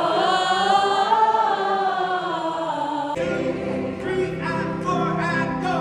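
Choir singing a slow worship song in held notes, with the sound changing abruptly and steady low notes coming in about three seconds in.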